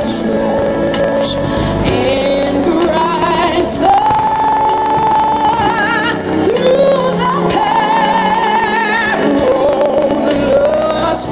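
Music with a singer holding long notes with a wavering vibrato over instrumental backing.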